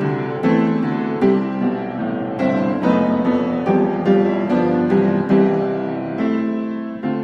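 Background piano music: a gentle melody of struck notes and chords, a new note about every half second.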